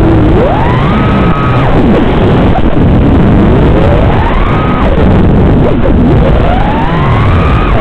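FPV quadcopter's electric motors and propellers whining over a constant rush of prop noise. The pitch climbs as the throttle is punched, holds briefly at its top and drops back, three times.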